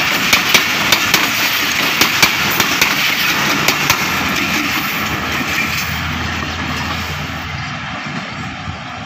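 Passenger coaches of an express train rolling past: sharp wheel clacks over the rail joints until about four seconds in, when the last coach, the guard van, goes by. Then the train's rumble fades as it moves away.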